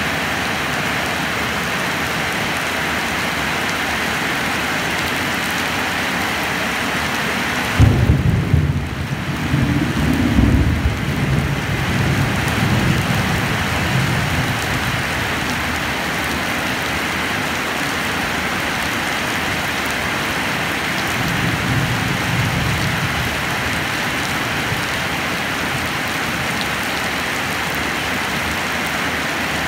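Steady heavy rain. About eight seconds in, a thunderclap breaks in and rumbles on for several seconds, and a fainter roll of thunder follows around twenty-two seconds.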